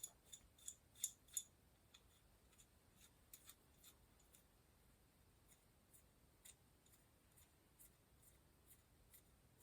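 Light metallic clicking, about three clicks a second for the first second and a half, then a few faint scattered clicks: small steel parts being fitted onto a bicycle's rear axle, a lock washer going on after the cone nut and washer.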